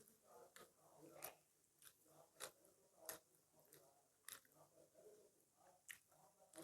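Faint chewing of food, with irregular sharp clicks from mouths working on it.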